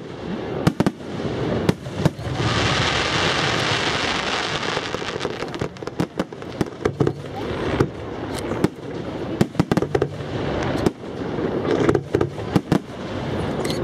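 Aerial fireworks bursting: an irregular run of many sharp bangs, with a dense rush of hiss from about two seconds in that lasts a few seconds.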